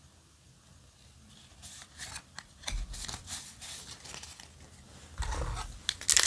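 Trading cards sliding and rubbing against each other as a stack is sorted through by hand, in a run of short rustles that starts after a quiet opening second or so. Near the end a foil booster pack crinkles as it is picked up and handled, the loudest sound here.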